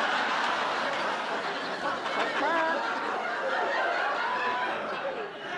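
Sitcom studio audience laughing: a long wave of crowd laughter with a few single voices rising above it. It slowly dies down near the end.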